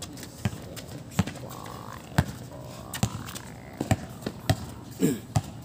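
A basketball being dribbled on an outdoor concrete court: about eight sharp bounces, unevenly spaced, roughly one or two a second.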